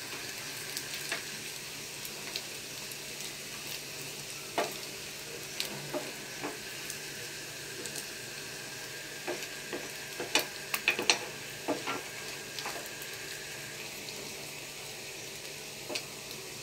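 Bread-and-egg mixture sizzling steadily in hot oil in a nonstick frying pan, with scattered taps and scrapes as a wooden spatula and a spoon press it into a round; the taps bunch together about ten seconds in.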